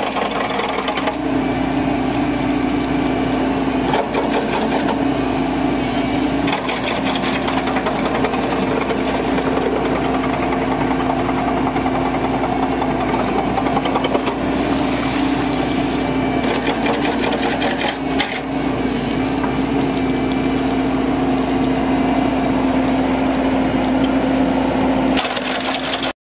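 Wheeled excavator running steadily while working a hydraulic mowing bucket through a water-filled ditch: a constant mechanical rattle over a steady hum. The sound cuts off suddenly near the end.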